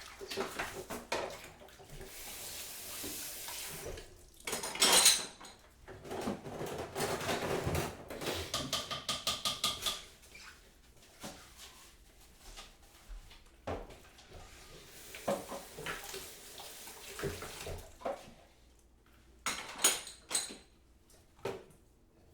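Kitchen crockery and cutlery clinking and clattering, loudest in one clatter about five seconds in. Between the clatters are stretches of rushing water and, near the middle, a quick even run of ringing clinks.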